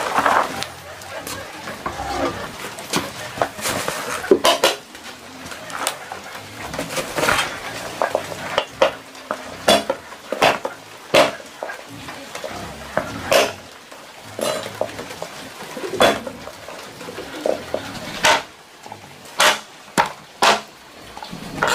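Kitchen utensils and pots clinking and knocking at irregular intervals, as in food being handled and stirred.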